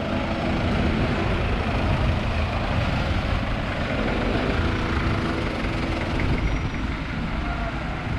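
Street traffic: the engines of jeepneys and cars running close by, a steady low rumble.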